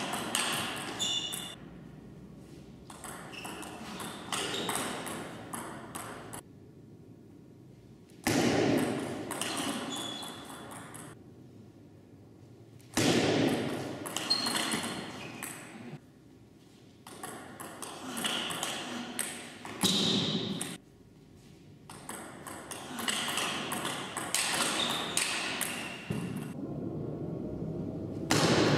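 Table tennis rallies: quick, sharp clicks of the ball off the rackets and the table, in runs with short pauses between points. Several louder sudden noises come between points and are the loudest sounds.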